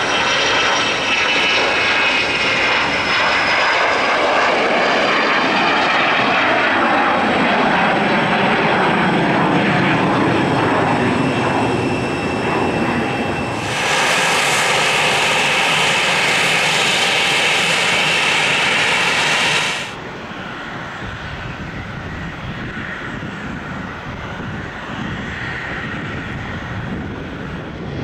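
Hawker 800-series business jet's turbofans at takeoff power, a loud roar with several whines falling in pitch over the first few seconds. About halfway, a Cessna Citation business jet's turbofans with a steady high whine, cutting off suddenly to a quieter, steady jet engine sound.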